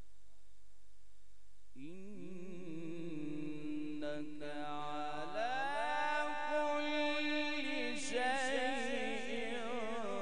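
Male qari reciting the Qur'an in melodic tajweed style through a PA microphone. The voice comes in about two seconds in and holds one long, ornamented phrase, sliding up into its notes with a quick wavering of pitch.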